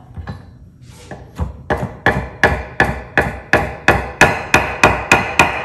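Chef's knife chopping fresh dill on a wooden cutting board: steady knife strikes, about three or four a second, starting about a second in and growing louder.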